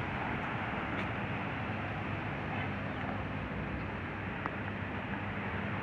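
Steady background hum of street traffic, with a low, even drone and no distinct events.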